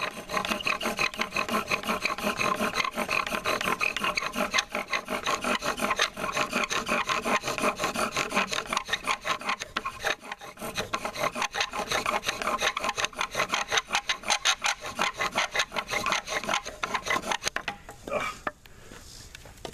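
Bow drill in use: a wooden spindle spun back and forth by the bow in the notch of a wooden hearth board, a rhythmic squeaky grinding rub with each stroke, grinding out the black char dust that becomes the ember. The drilling stops near the end.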